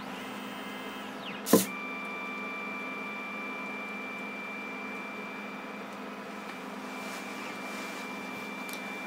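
CNC pen plotter: a sharp knock about a second and a half in as the pen comes down onto the paper, then its stepper motors run with a steady high whine as the pen draws a line, over a low machine hum.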